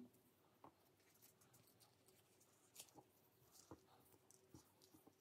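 Near silence, with a few faint scattered rustles and soft ticks of hands handling braided rope.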